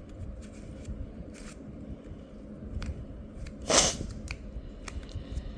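Moyu RS skewb being handled and twisted, with scattered faint plastic clicks and one louder, brief sound a little under four seconds in.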